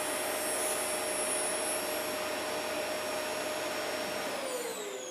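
Electric PCB specimen sawing machine running steadily with a whine, its saw motor spinning down about four seconds in with the pitch falling as the cut ends.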